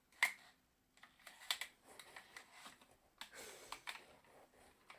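Light clicks and taps with a brief rustle, from a resin ball-jointed doll and its wrapping being handled: a sharp click just after the start, a few more around a second and a half in, and a short rustle past the three-second mark.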